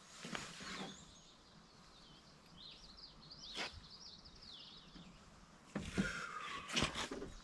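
A songbird sings a quick, twittering phrase of high chirps for about two seconds in the middle, faint against the quiet. Scattered knocks and scuffs come and go, with the loudest pair near the end.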